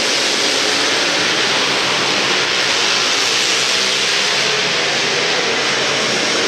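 Several racing quad (ATV) engines running hard at once, a steady, loud mix of engine noise with the pitch wavering as riders work the throttle.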